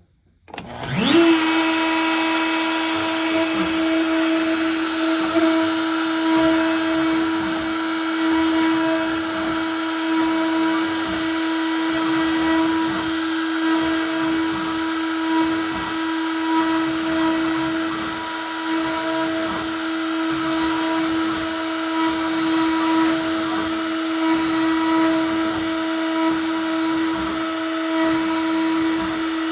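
CNC router spindle spinning up, rising quickly in pitch about a second in, then running at a steady high-speed whine while carving a wooden plaque.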